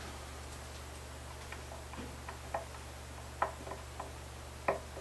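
Scattered light clicks and taps of a small screwdriver working the mounting screws of a guitar's vintage Gibson Deluxe tuners as they are unscrewed from the headstock, with the sharpest clicks about three and a half seconds in and near the end. A low steady hum runs underneath.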